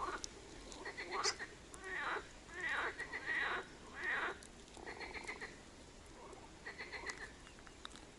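Frogs croaking: a series of rapid rattling calls, some overlapping, thickest about two to four seconds in.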